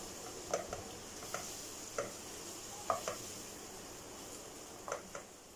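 Chopped onions and ginger-garlic paste frying in butter and oil in a nonstick wok, with a faint steady sizzle. A silicone spatula stirs and scrapes the pan in short, uneven strokes about every second.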